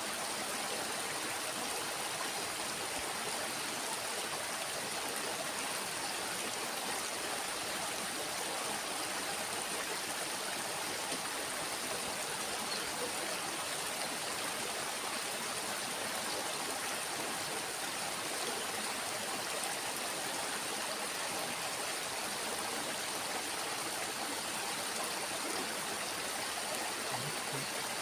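Steady rush of flowing water from a small stream, even and unbroken.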